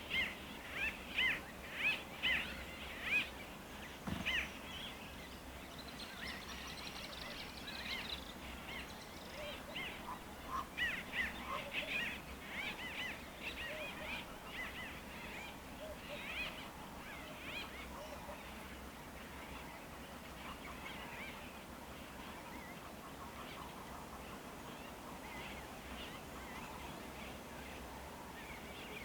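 A wild bird calling in rapid series of short, repeated notes, about three a second, in two bouts, at the start and again around ten seconds in, growing sparse toward the end. A single low thump about four seconds in.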